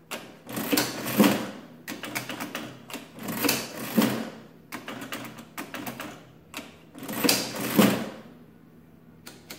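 Hand crank of a 1909 Dalton ten-key adding machine pulled three times. Each pull is about a second of dense clattering from the gears, levers and type mechanism cycling, with a few lighter clicks in between.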